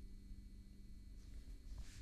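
Quiet room tone with a faint steady electrical hum. From about a second in comes a soft brushing rustle as a hand and sleeve move across a wooden tabletop to a small plastic pod.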